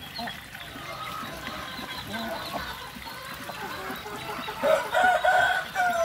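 Flock of chickens and Muscovy ducks feeding: steady clucking and small calls, with a louder run of calls about five seconds in and a call falling in pitch near the end.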